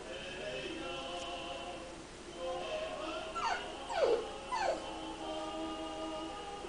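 A pet gives three short whimpering cries, each falling sharply in pitch, over steady background music.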